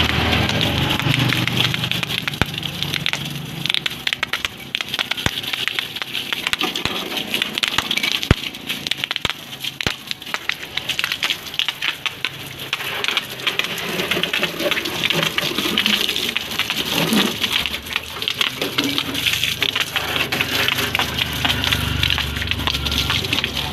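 Water from a garden hose, narrowed by a finger over the end, spraying and splattering across a car's engine bay: a steady hiss with crackling patter. A low rumble comes in at the start and again near the end.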